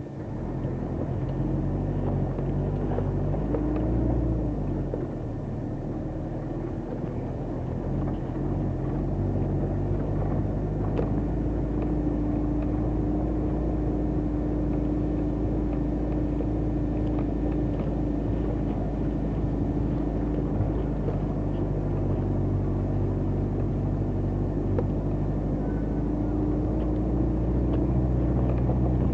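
Vehicle engine running steadily while driving along a gravel road.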